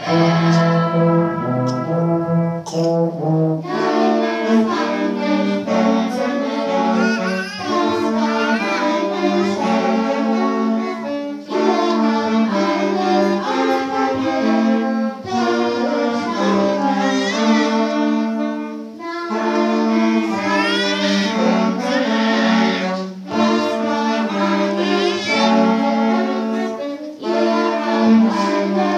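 Loud brass-led music playing in repeating phrases, with short dips between them.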